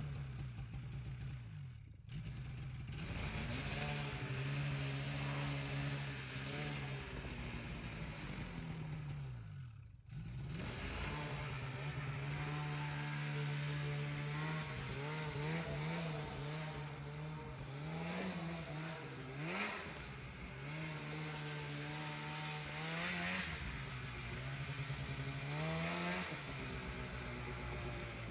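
2014 Polaris RMK 800 snowmobile's two-stroke twin engine running under throttle, holding a steady pitch for several seconds at a time. The throttle is let off briefly about two seconds in and again about ten seconds in. In the second half there is a run of quick rises and falls in pitch as it is revved.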